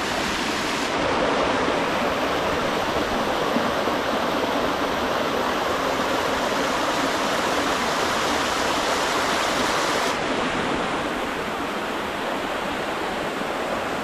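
Waterfall water pouring down from a ledge: a steady rushing noise.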